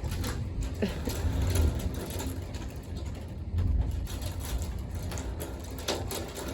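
Hail and rain pelting a window in a thunderstorm: a dense, rattling patter of small hits over a low, uneven rumble.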